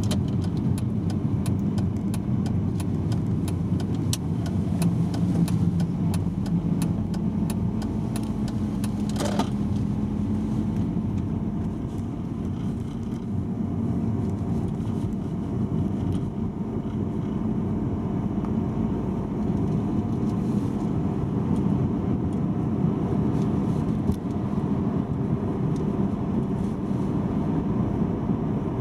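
Inside a moving car: a steady low rumble of the engine and tyres on asphalt. Scattered light ticks come through in the first ten seconds, and a short whoosh about nine seconds in.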